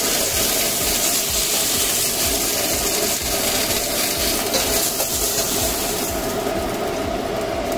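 Hot oil and chicken fat sizzling steadily in a stainless-steel pot as seared chicken pieces are lifted out; the highest part of the hiss eases about six seconds in.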